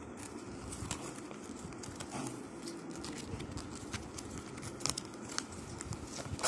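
Paper leaflet rustling and crackling as it is handled and leafed through by hand, with many short, sharp crackles and a couple of louder ones about five seconds in.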